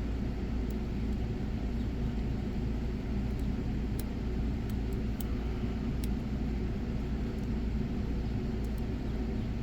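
A steady low background rumble with a few faint, sharp clicks scattered through it: the lock pick working the pin stacks of a Godrej Duralock Ultra XL.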